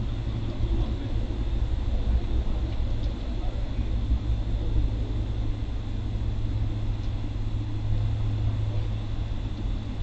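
Steady low outdoor rumble with a faint high steady hum above it, unchanging throughout.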